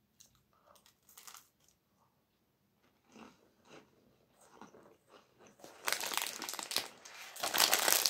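Close mouth sounds of biting and chewing dried apricot, with small faint crunches. About six seconds in, a thin plastic food bag is handled and crinkles loudly.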